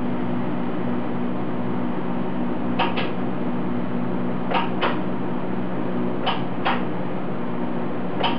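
TIG welder arc on thin stainless steel sheet: a steady electrical buzz and hiss. Three pairs of short sharp clicks come about every second and a half, with one more click at the end.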